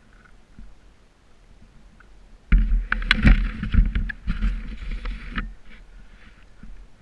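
2012 Honda CRF250R dirt bike's single-cylinder four-stroke being ridden, heard muffled through a GoPro housing: low and quiet at first, then a sudden loud rumbling, rattling stretch of about three seconds that begins a little past two seconds in.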